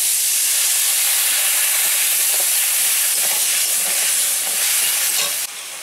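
Tamarind water poured into a hot kadai of fried crabs and spiced oil, hissing and sizzling loudly as it hits the oil and turns to steam, while a spatula stirs. The hiss drops off sharply about five and a half seconds in.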